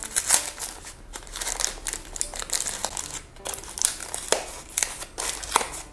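Small paperboard blind box being torn open by hand: a run of crinkling and rustling made of many small crackles.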